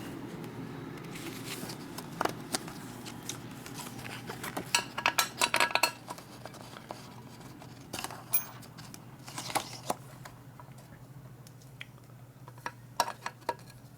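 Metal parts and tools clinking and clattering as a steel plate is handled and tried in place, with a quick run of rattling taps about five seconds in and scattered clinks after.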